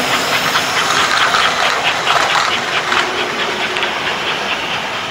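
American Flyer S-gauge electric toy train running on the track: a steady rushing with a fast, even clicking, easing off slightly as the train moves away.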